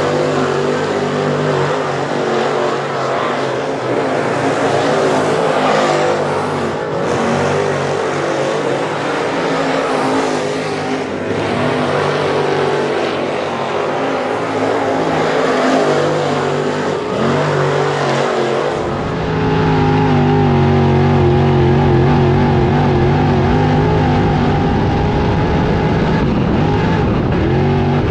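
Dirt late model race car's V8 engine lapping a dirt oval, its pitch rising and falling through the corners. About two-thirds in, the sound switches to a steadier, deeper engine note heard from inside the car.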